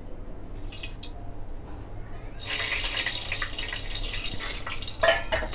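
Fenugreek seeds tipped into hot refined oil in a steel pot, the oil starting to sizzle and crackle about two seconds in.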